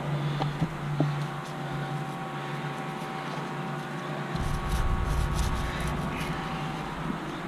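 Electric fan running steadily with a constant hum. A few light taps and rustles come through it, and a low rumble joins about four seconds in.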